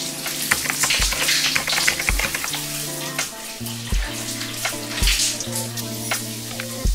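Shower water spraying steadily from a rainfall shower head, mixed with background music: held bass notes and a kick drum hitting about once a second.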